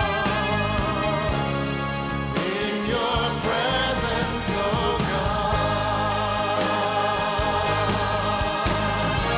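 Live worship band and choir performing a gospel-style song: sustained sung notes with vibrato over steady bass notes and drums.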